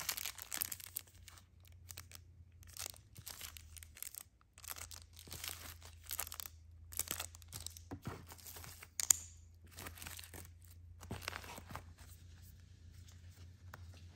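Plastic packaging and bubble-wrap pouches rustling and crinkling as they are handled in a cardboard mailer box, in short irregular spells, with a sharp click about nine seconds in.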